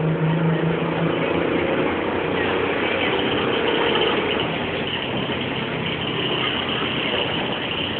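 Ikarus-GVM 280.94 articulated bus's diesel engine heard from inside the passenger cabin, running with a steady low hum at first. About halfway through, the hum gives way to a rougher, even rush of noise.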